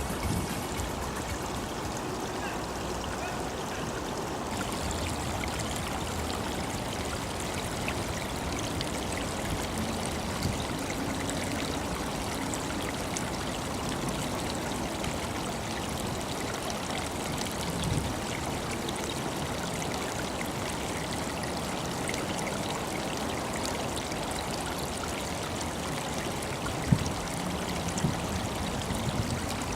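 Steady running water of a small spring-fed stream trickling along, with three brief knocks, the sharpest near the end.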